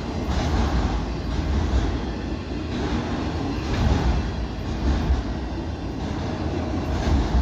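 Freight train cars rolling past close by: a steady, heavy rumble of steel wheels on rail, swelling a little now and then as trucks pass.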